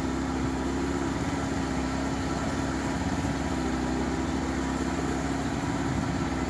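Small boat's engine running steadily at a constant speed: a steady hum with fast low chugging.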